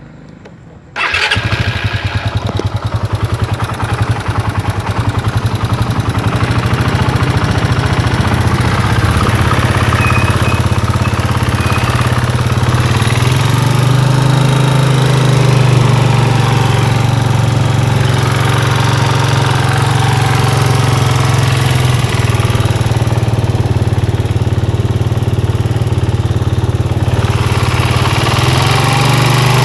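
Suzuki Satria FU single-cylinder four-stroke engine starting about a second in and then idling steadily, its pitch rising slightly twice. It makes a strange noise that the owner takes for a worn part needing replacement.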